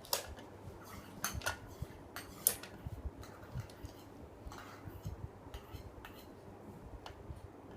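Scattered light clicks and taps of a spoon against a dish, irregularly spaced, about a dozen over several seconds, with the loudest near the start.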